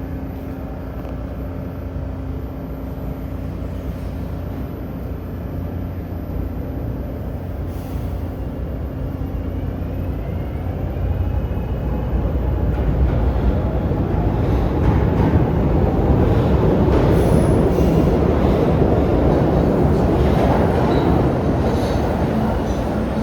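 SEPTA Route 34 trolley, a Kawasaki light rail car, running on its rails: a low steady hum with a faint rising whine as it gathers speed, then wheel-on-rail rumble growing louder from about ten seconds in and holding loud.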